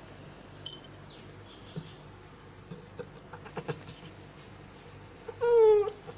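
A short, high mew from a cat, falling in pitch, about five and a half seconds in, after a few faint clicks and rustles.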